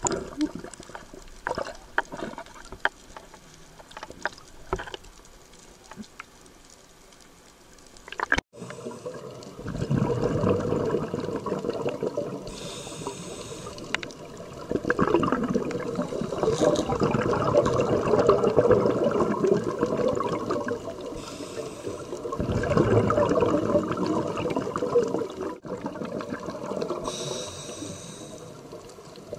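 Scuba diver breathing underwater: the regulator hisses on each breath in, and the exhaled air bubbles out in long noisy rushes, repeating several times from about nine seconds in. Before that there is only faint underwater crackling and clicking.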